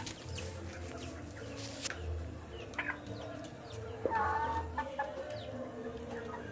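Young chickens clucking and peeping while eating, with scattered sharp clicks and a longer cluck about four seconds in.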